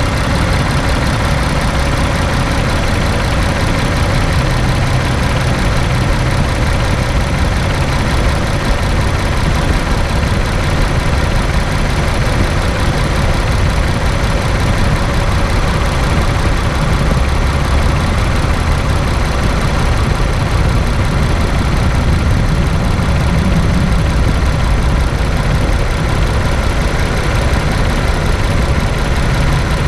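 Steady running noise of a 2017 Infiniti Q50's VR30 twin-turbo V6, a low drone that holds level throughout. The car has a belt-squeal problem, but no distinct squeal stands out.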